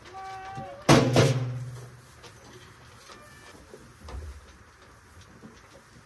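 A goat gives one short bleat at a steady pitch. About a second in comes a loud metallic clank with a low ringing tail from the metal milking stand, then a fainter second call and a soft thump.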